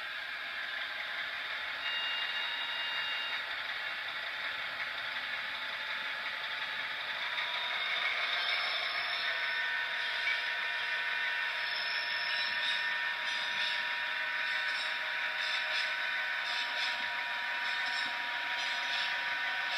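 ESU LokSound decoder in an H0 model of an FS D445 diesel locomotive playing its diesel engine sound through the model's small speaker, which gives it a thin sound with no low end. It runs steadily and gets a little louder about seven seconds in.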